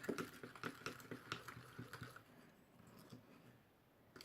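A spoon stirring glue and water in a bowl: faint, irregular scrapes and taps of the spoon against the bowl, fading out about two seconds in.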